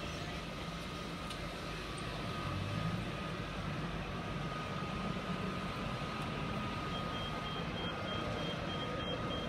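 Outdoor yard ambience: a steady low rumble of vehicle engines with a faint constant whine. Near the end there is a faint, high, evenly spaced beeping.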